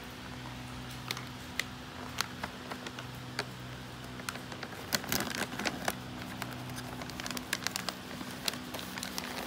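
A crinkly foil snack bag crackling in small irregular clicks as it is handled, with a thicker run of crackles about halfway through. A faint steady hum runs underneath.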